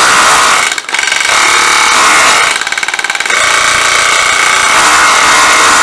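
Panasonic cordless rotary hammer with an electro-pneumatic hammer action, run in hammer mode with its bit pressed into a wooden block. The motor runs with a steady whine under rapid hammer blows, easing off briefly about a second in. The hammering is very smooth.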